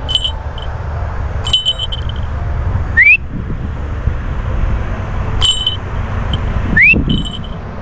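A short, rising recall whistle, given twice a few seconds apart, calling a trained crested goshawk back to the fist. Brief clicks with a ringing high tone fall between the whistles, over a steady low rumble.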